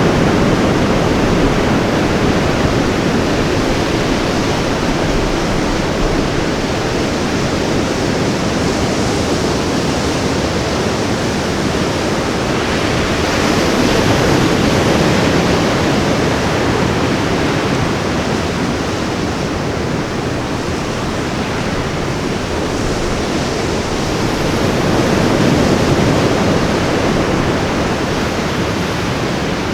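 Ocean surf breaking and washing up on a beach: a continuous rush of waves that swells and eases a few times.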